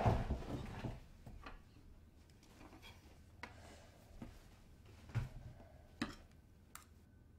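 A rustle of movement with a few light knocks in the first second, then a handful of faint, separate clicks and taps.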